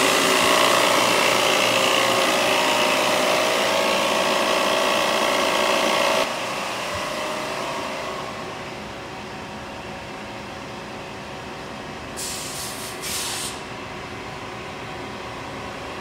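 Refrigerant recovery machine running, its compressor pulling refrigerant out of the heat pump into a recovery cylinder with a loud, steady mechanical whir. About six seconds in it cuts to a much quieter steady background noise, with two brief hisses near the end.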